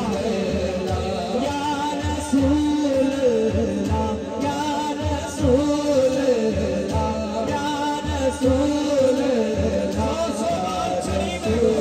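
Male voices singing a Punjabi naat, a devotional song, into microphones, with long melismatic held notes over a steady drum beat.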